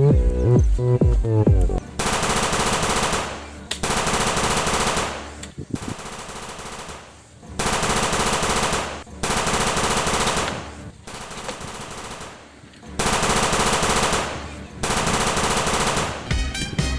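Balloons letting out air through their necks: a raspy, fluttering buzz in about six bursts of one to two seconds each, after a short stretch of music at the start.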